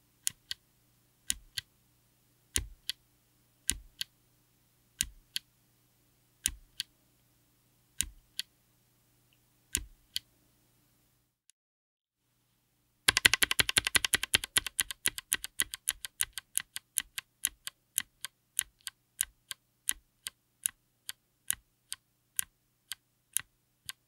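Gateron Melodic clicky switch, with its click leaf, being pressed and released close to the microphone; each stroke gives a sharp click. First come slow, spaced presses about a second or more apart; after a short pause comes a fast run of clicks that settles into a steady two or three a second.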